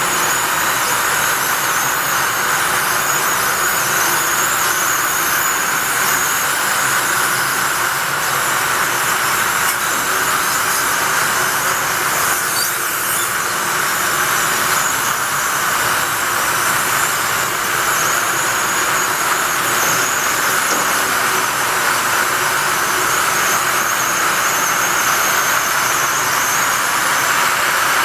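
Rigert stair lift travelling on its track, giving off a steady squeal with hiss. The squeaking is the lift's usual running noise.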